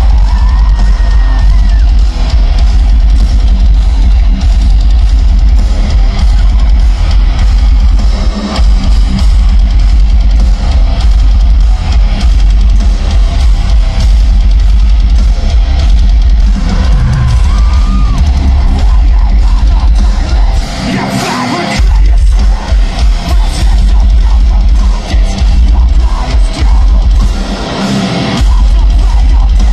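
Metalcore band playing live at full volume: drum kit, guitars and bass together. The low end drops out briefly about three-quarters of the way through and again near the end.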